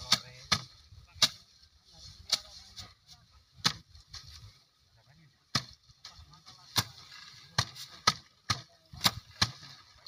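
Rice being threshed by hand: sheaves of cut stalks beaten against a wooden threshing frame, giving sharp whacks at irregular intervals as several threshers strike out of step, about a dozen in ten seconds.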